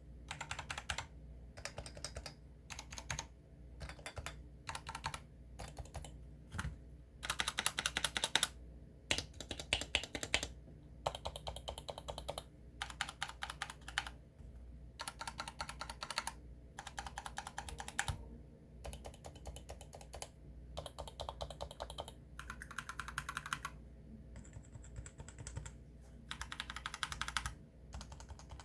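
Typing on a Leopold FC660-series compact keyboard: bursts of rapid keystrokes, each lasting about a second, separated by short pauses.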